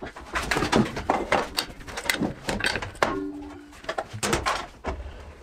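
Knocks and clatter of metal and wood as a spindle moulder fence is set in place on the machine table and its flexible dust-extraction hose is handled, with a short squeal a little past three seconds in.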